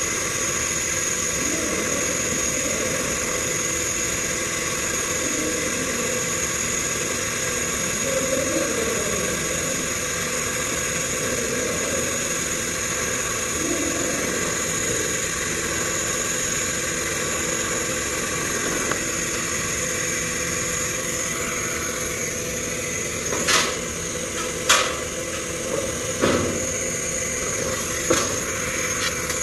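Steady machinery hum and hiss with a thin high whine. From about 23 seconds in, four sharp clicks or knocks.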